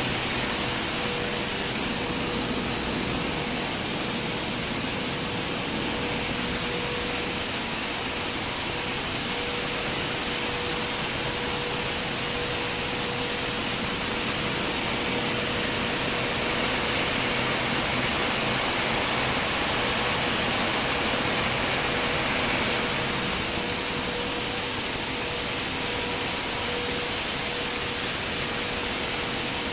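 Maize cleaning, peeling and grits milling machinery running: a steady mechanical whirr with a constant hum.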